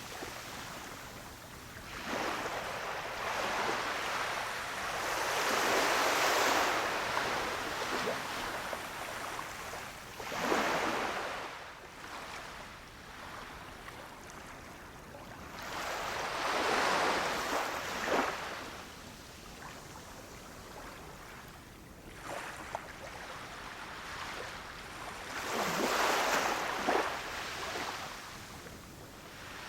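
Small waves washing onto a sandy beach, each one swelling into a rushing hiss and then drawing back, with a fresh surge every five to eight seconds.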